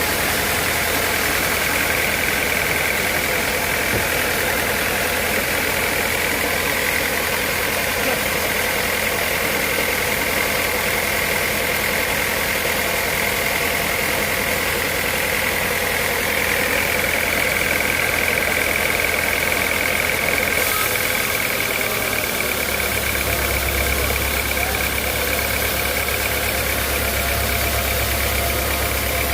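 Sawmill machinery running steadily: a continuous mechanical drone with a high whine held throughout, its low hum shifting pitch about three-quarters of the way through.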